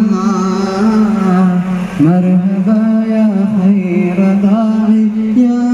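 A devotional chant sung in long held notes with ornamented pitch turns, played over loudspeakers; the melody steps up in pitch about two seconds in and again near the end.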